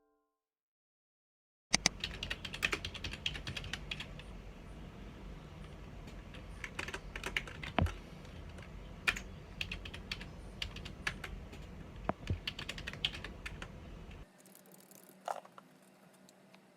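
Typing on a computer keyboard: quick, irregular key clicks start about two seconds in and stop abruptly near the end, leaving a few faint clicks.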